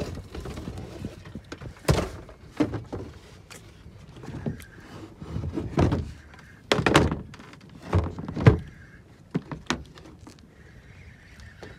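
Irregular hollow thunks and knocks, about a dozen, some sharp and some duller, from a small outrigger fishing boat (bangka) rocking on open water, with water slapping its hull and outrigger floats.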